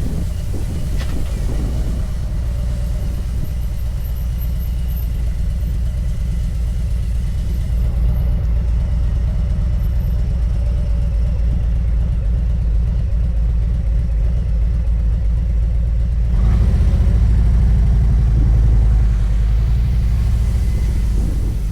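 Motorcycle engine running while riding, a steady low rumble that grows louder for a few seconds about sixteen seconds in.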